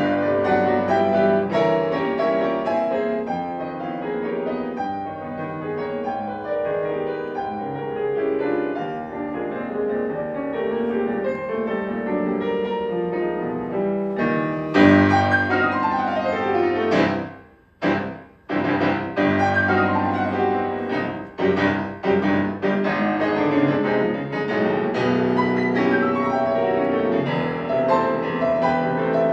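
Bösendorfer concert grand piano playing classical music solo, with dense, continuous chords. About halfway through, a sudden loud chord is followed by a few very short breaks before the playing picks up again.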